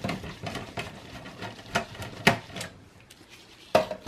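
Phillips screwdriver undoing the motherboard screws in a small-form-factor desktop PC's metal case: light irregular clicking and scraping, with a few sharp knocks, the loudest about two seconds in and again near the end.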